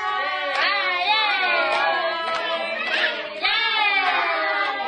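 Several voices singing a song together, women's and children's voices among them.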